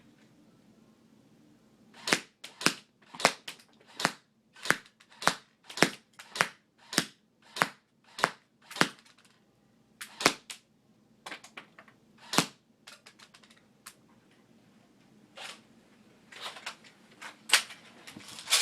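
ICS M4 airsoft electric gun firing single semi-automatic shots of .20 g BBs: a run of about a dozen sharp shots roughly every half second, then a few spaced shots. Lighter clicks and rattles follow near the end.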